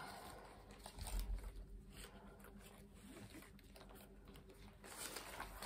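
A Longchamp handbag and its shoulder strap being handled, rustling, with the clear plastic wrap on its handles crinkling. A couple of dull bumps, about a second in and near the end.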